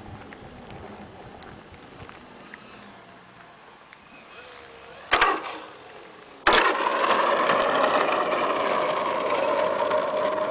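Sebart Su-29 model aerobatic plane's motor and propeller, faint and distant at first. A brief loud burst comes about five seconds in. From about six and a half seconds a loud, steady propeller drone starts abruptly, its pitch slowly shifting, as the plane lands and taxis close by.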